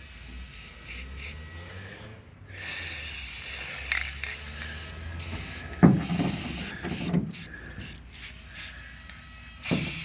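Aerosol spray-paint can hissing in repeated bursts as paint is sprayed onto a boat hull, broken by short pauses. A few dull thumps sound about six and seven seconds in and again near the end, the first the loudest.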